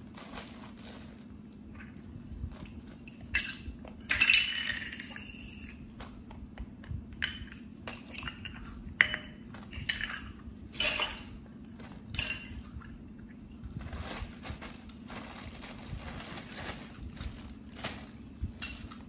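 Dishes and metal utensils clinking and knocking at irregular intervals, with one louder, ringing clatter about four seconds in, over a steady low hum.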